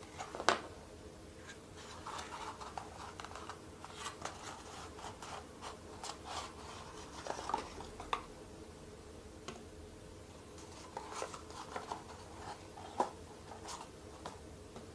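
Hands handling a small cardboard box and the metal parts of a toy gyroscope: cardboard rubbing and rustling, with scattered light clicks and taps as the parts are lifted out and set down. The loudest tap comes about half a second in, another near the end.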